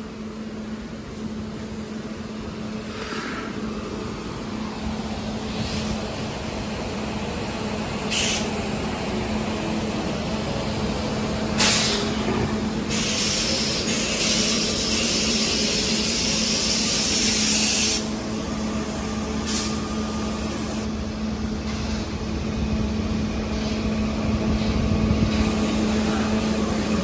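Railway yard sounds: a steady low hum of an idling locomotive, with a few short hisses and one long hiss of released air about halfway through, lasting about five seconds and cutting off sharply.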